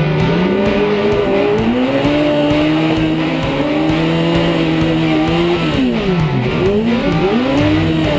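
Stunt car's engine revving hard, its pitch climbing and holding for a few seconds, then dropping and rising again in several quick swoops in the last few seconds.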